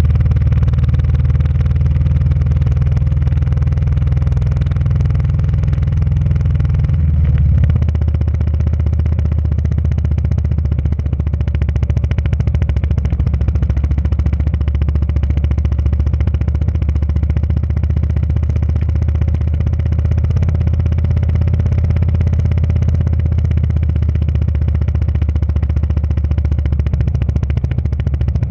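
Motorcycle engine running steadily while riding, heard from on board. About seven seconds in its note changes to a rapid, even pulsing.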